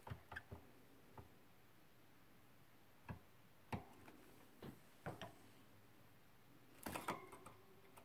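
Near silence, broken by a few faint, scattered clicks and taps, with a short cluster of them near the end.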